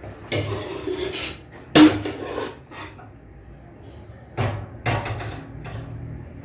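Kitchen handling sounds of utensils and dishes: a rustling scrape of about a second, then a sharp knock about two seconds in, the loudest, and a few softer knocks later.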